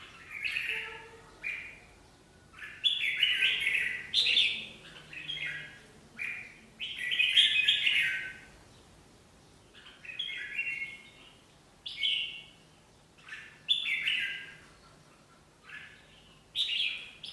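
Red-whiskered bulbuls calling in a string of short, bright chattering phrases, one every second or two, the loudest a few seconds in and around the middle.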